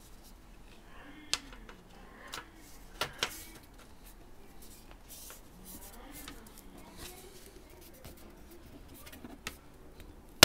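Aluminium bottom cover of a Dell XPS 15 laptop being pressed down onto the chassis, giving several short sharp clicks as its clips snap into place. The loudest comes about a second and a half in, followed by a quick pair around three seconds.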